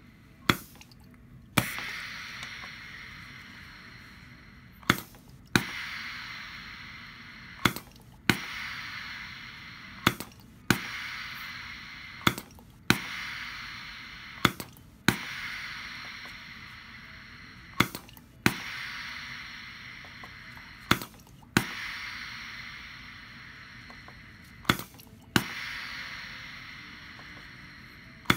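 Hibar metering-pump filling machine cycling through repeated water dispenses, about one cycle every three seconds. Each cycle is a pair of sharp clicks about half a second apart, followed by a hiss that fades over a couple of seconds.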